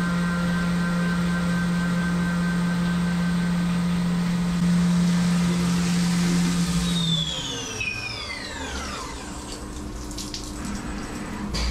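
Syil CNC mill spindle running steadily at speed with flood coolant spraying, then spinning down about seven seconds in with a falling whine. Coolant keeps pouring and splashing after the spindle stops.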